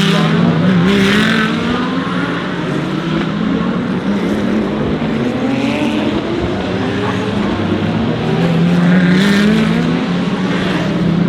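DTM GT3 race cars accelerating on track, engine notes climbing in pitch through the gears and dropping back at each shift, with a second long climb about eight seconds in.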